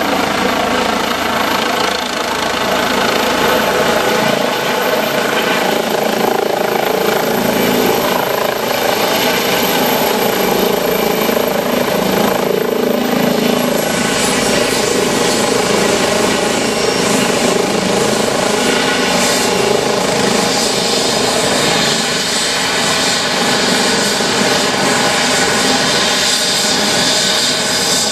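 Eurocopter EC135 air-ambulance helicopter with a ducted fenestron tail rotor, hovering in over the helipad and then running on the pad with its rotors turning: a steady, loud mix of rotor and turbine noise. A thin high whine steps down slightly in pitch about halfway through.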